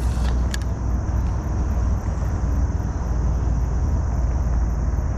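Wind buffeting the microphone outdoors: a steady low rumble, with one short sharp click about half a second in.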